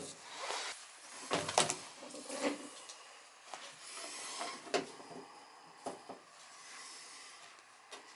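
Scattered clicks and light knocks from handling a multimeter and an old furnace hot-surface igniter, readying the meter to measure the igniter's resistance.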